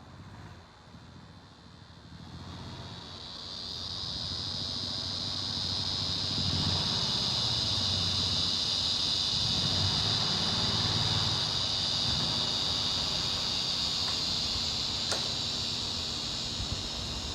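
A steady, high-pitched insect chorus that swells in over the first few seconds, with some low rumbling in the middle and a single sharp click near the end.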